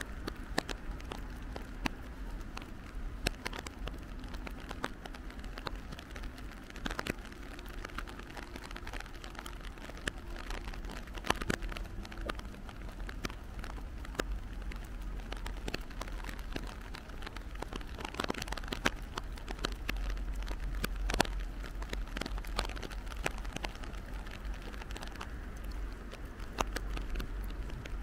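Rain pattering, with many irregular drops ticking close by over a steady low rumble, all played in reverse.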